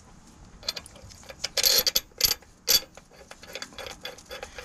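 Ratchet wrench clicking as a bolt is run back in on the engine's timing-chain cover area, with a louder rasping spell and two sharp metal knocks in the middle, then a run of light, even ticks, about five a second, near the end.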